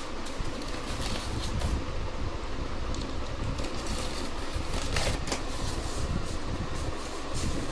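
A steady fan-like whoosh with a low rumble, overlaid by scattered clicks and rustles as packaging and a charger are handled on a table, with a sharper cluster of clicks about five seconds in.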